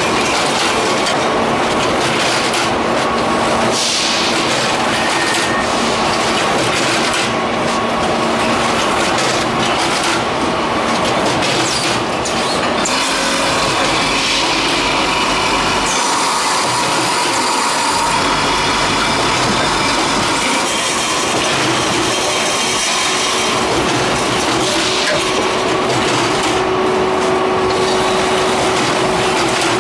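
Automatic pouch-packing and cartoning line running: a steady mechanical clatter of its conveyors and mechanisms, with a few faint steady hums underneath.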